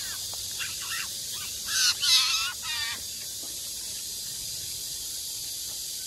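Eurasian jay giving a short run of harsh, rasping calls about two seconds in, after a few faint short calls, over a steady high hiss of insects.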